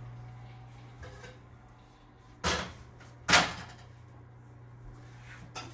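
A metal sheet pan with a wire rack of roasted vegetables set down on a kitchen counter: two knocks a little under a second apart, the second louder, over a steady low hum.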